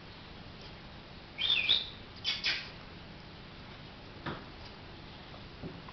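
A short high-pitched squeak about one and a half seconds in, then a couple of quick scuffs and a few single taps as a puppy's paws hit a tiled floor while it runs.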